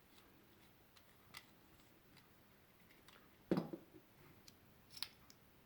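Faint clicks and scrapes of a butane soldering iron's metal tip section being unscrewed by hand, with a louder knock about three and a half seconds in and a sharp click near five seconds.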